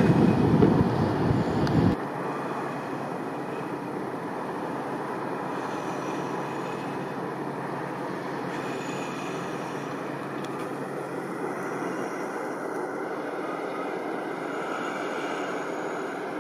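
Wind buffeting the microphone with a loud low rumble, cut off abruptly about two seconds in. It gives way to the steady drone of a passing offshore supply ship's engines heard across the water.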